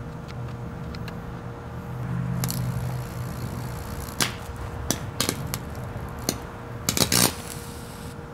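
Vintage Hamilton Beach blender motor running during a deliberate burnout, a steady hum, with sharp snapping pops of sparking from about four seconds in. A quick burst of loud crackles comes near the end, after which the hum drops away.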